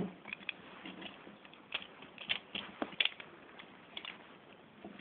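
Irregular small plastic clicks and taps of a Transformers Energon Snow Cat action figure's parts being moved and pushed into place by hand during its transformation, the loudest about three seconds in.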